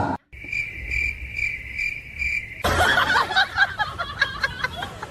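Cricket-like chirping: a high tone pulsing about twice a second, which cuts off after about two and a half seconds into a busy stretch of many short squeaks and clicks.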